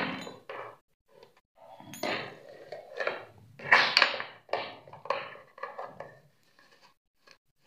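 Bamboo slats of a reog rengkek frame knocking and scraping against each other as they are handled and tied on with string, in irregular bursts, the loudest about halfway through.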